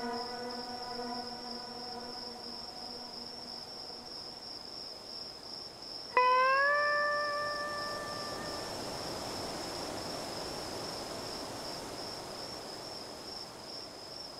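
Steady high-pitched cricket-like chirring. A long pitched note fades out over the first few seconds, and about six seconds in a sudden loud note slides up in pitch, holds for about two seconds and fades away.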